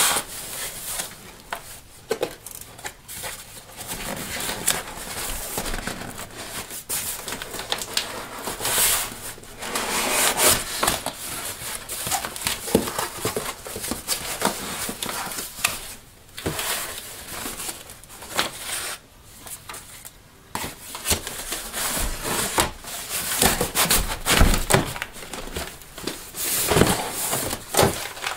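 Cardboard shipping box being handled and unpacked: irregular rustling, rubbing and scraping of cardboard and paper packaging, with the box sliding on the wooden bench and occasional short knocks as flaps are pulled open.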